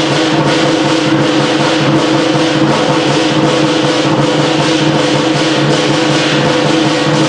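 Chinese lion dance percussion: a drum beating with clashing cymbals and a ringing gong, continuous and loud.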